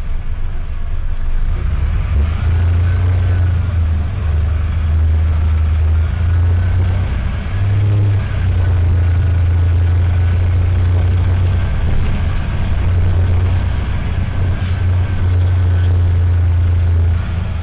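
Mercedes-Benz OM904LA four-cylinder turbo-diesel of an OH1618L-SB bus running under way, heard from on board as a steady low drone that steps up and down in pitch a few times. The air-conditioning compressor and its pulley sound over the engine.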